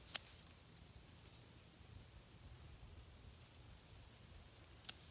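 Faint, steady, high-pitched insect trilling, with a second trill joining about a second in. Two sharp clicks, one right at the start and one near the end, are the loudest sounds.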